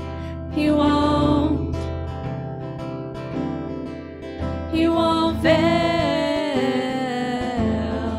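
Live worship song: a strummed acoustic guitar with women singing over it, sung phrases coming in about half a second in and again from about five seconds in.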